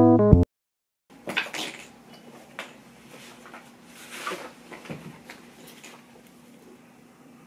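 Background piano music that cuts off suddenly, then, after a brief gap, scattered light knocks and clatter of objects being handled and set down.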